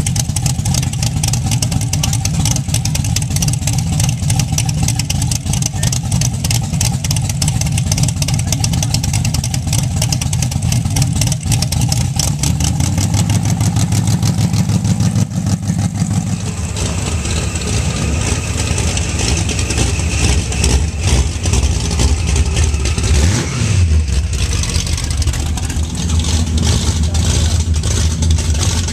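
A vehicle engine running, which the uploader presents as making bad sounds. About sixteen seconds in its note changes and turns lower and rougher, with a brief rise in pitch a little later.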